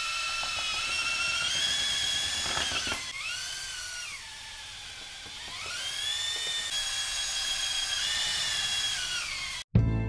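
Electric drill spinning a paddle mixer in a plastic bucket of primer: a steady motor whine that drops in pitch for a few seconds around the middle as the speed eases, then climbs back up. It cuts off abruptly near the end.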